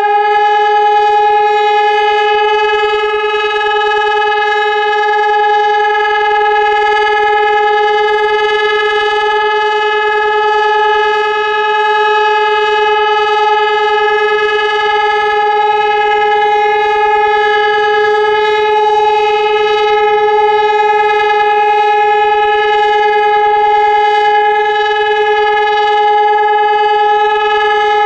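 Civil defence siren sounding the all-clear (Entwarnung) signal: one loud, steady tone with many overtones, held at a constant pitch without any rise and fall.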